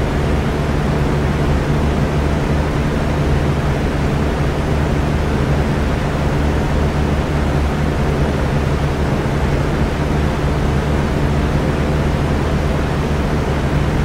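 Electric fan running steadily: an even rush of moving air over a low, constant motor hum.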